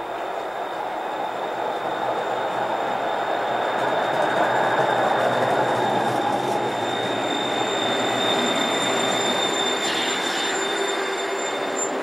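Electric tram pulling in along a platform: the running noise of its wheels on the rails grows louder over the first few seconds as it comes close and passes by, with a steady high-pitched whine throughout.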